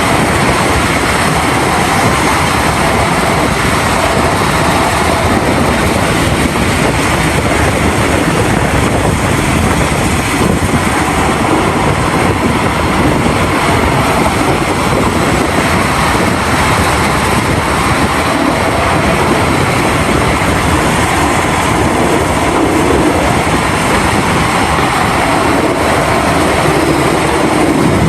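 Large mining excavators and haul trucks working: heavy diesel engines running steadily and loudly, with no clear single knocks or dumps standing out.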